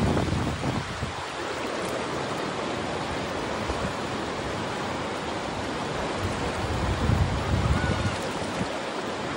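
Fast, swollen Kern River rapids rushing steadily, with wind buffeting the microphone at the start and again about 7 seconds in.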